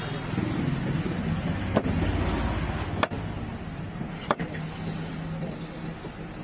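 Large fish-cutting knife chopping Spanish mackerel on a wooden block: three sharp knocks about a second and a quarter apart, over a steady low background rumble.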